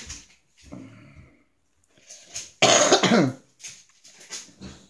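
A person coughs once, loudly, about two and a half seconds in: a harsh burst that trails off into a falling, voiced sound. A few faint clicks from plastic being handled sit around it.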